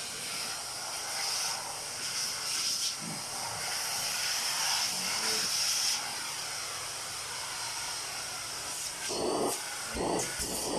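Bissell Featherweight stick vacuum running with a steady airy hiss of suction, louder for the first several seconds, with a few handling knocks near the end.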